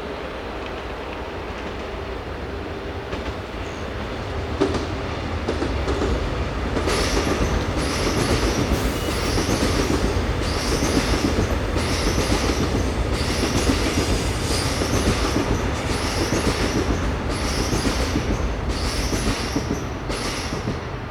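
Seoul Metro Line 4 subway train (Dawonsys-built) running on the track with a steady low rumble that grows louder about five seconds in. From about seven seconds in, a short high-pitched noise repeats roughly once a second.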